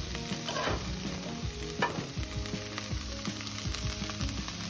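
Broccoli florets sizzling in butter and olive oil in a nonstick frying pan as they are sautéed until tender, stirred with a spoon that scrapes and knocks against the pan now and then, with one sharper knock near the end.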